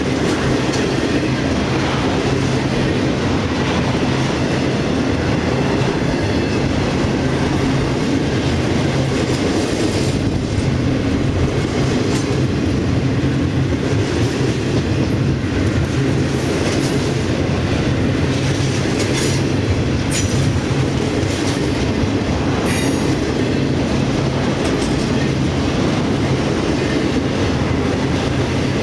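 Intermodal freight train of trailer flatcars and double-stack container cars rolling past: a steady rumble of steel wheels on rail with clicking over the rail joints. Short high-pitched wheel squeals come now and then, mostly in the second half.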